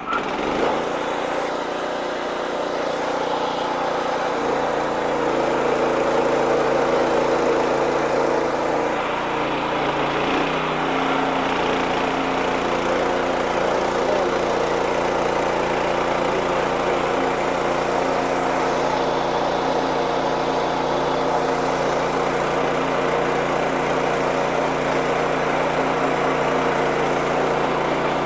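Engine of a Wood-Mizer LX55 band sawmill running steadily, with small shifts in pitch about 4 and 10 seconds in, as the mill works through a hard hickory log.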